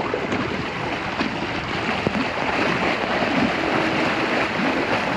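Deep floodwater sloshing and churning around a stalled car as it is pushed backward through it, the rush of water building slowly.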